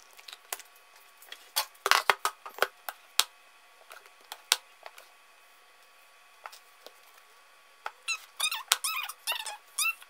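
Handling a freshly unmolded loaf of cold-process soap: a scatter of sharp knocks and clicks, then, about eight seconds in, a run of squeaks as the soap loaf is rubbed and pushed along the plastic base of a wire soap cutter.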